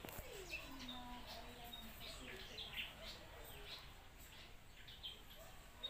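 Small birds chirping, faint, many short, quick chirps one after another.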